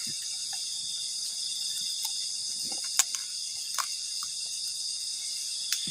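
Steady high-pitched chorus of forest insects, crickets or similar, with a few faint clicks, one about three seconds in and one near the end.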